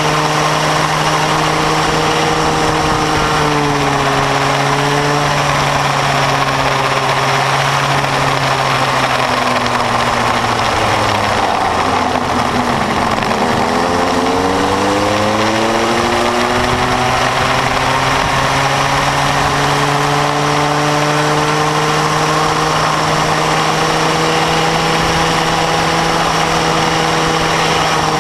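Bambino go-kart's small two-stroke engine heard from its onboard camera, running at steady revs down the straights, with the pitch falling about halfway through as the kart slows for a bend and rising again as it accelerates out.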